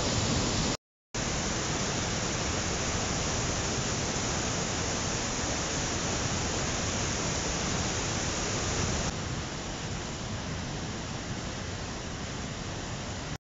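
Steady rush of whitewater through a rocky gorge, a continuous even hiss. It cuts out briefly about a second in and carries on somewhat quieter from about nine seconds in.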